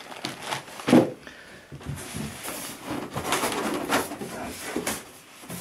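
Cardboard box and plastic packaging rustling and knocking as items are handled and lifted out by hand, with a sharper knock about a second in.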